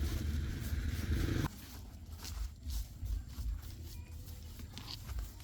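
A motor running with a low, pulsing rumble stops abruptly about a second and a half in, followed by light clicks and handling knocks.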